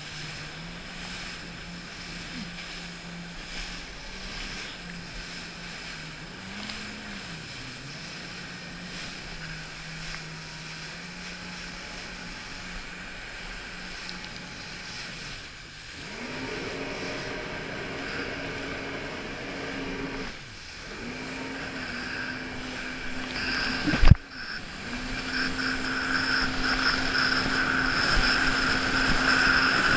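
Jet ski engine running at low speed, then stepping up in pitch about halfway through and growing louder toward the end as the throttle opens. A single sharp thump about three-quarters through is the loudest sound.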